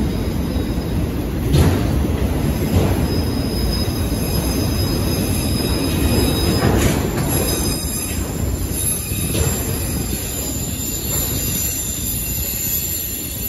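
Freight cars of a mixed manifest train rolling past on the rails: a steady rumble with a few clunks from the wheels over the rail joints and a faint high-pitched squeal from the wheels, easing off toward the end.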